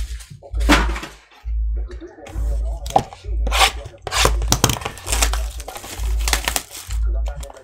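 Hands opening a box of trading cards and its packs: cardboard and pack wrappers rustling and crinkling in a run of short, irregular crackles.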